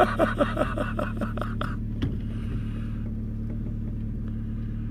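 A vehicle engine idling with a steady low hum. Over the first two seconds a quick series of about eight short pitched calls or laughs, each falling in pitch, sounds over it.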